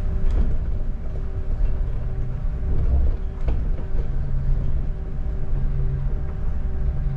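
Double-decker bus running, heard from inside the cabin: a low engine rumble with a steady hum and a few brief knocks and rattles from the bodywork.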